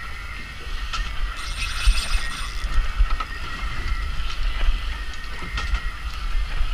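Shimano Twin Power SW 12000XG spinning reel running under the load of a hooked yellowtail kingfish, a steady mechanical whir with clicking, over the low rumble of wind on the microphone.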